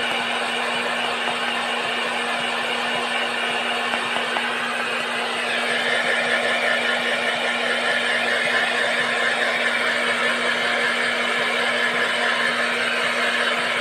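Handheld hair dryer running steadily: a motor hum under the rush of blown air. The air noise grows a little louder about five seconds in.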